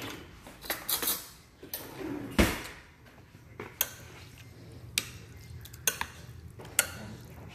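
Kitchenware clinking and knocking: a string of short, sharp clinks of utensils and dishes, with one louder knock about two and a half seconds in.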